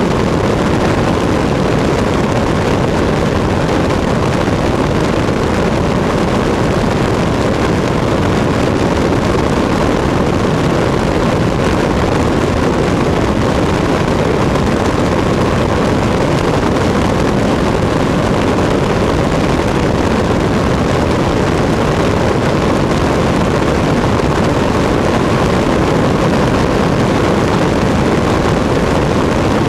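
Cessna 152's four-cylinder Lycoming O-235 engine and propeller running steadily in flight, heard from a camera mounted outside the airframe, with wind rushing over the microphone. The sound stays the same throughout, with no change in engine speed.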